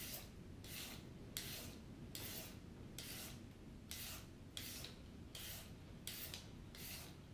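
Hand-held julienne shredder scraping strips off a raw carrot, a short rasping stroke repeated about twice a second.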